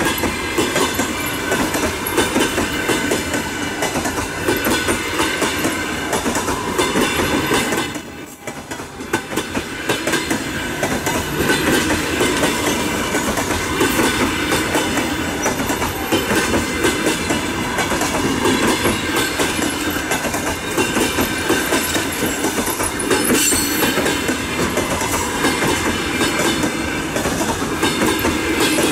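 Passenger coaches of a locomotive-hauled train rolling past close by: a steady rumble and hiss with wheels clicking over the rail joints. The sound drops away briefly about eight seconds in, then comes back.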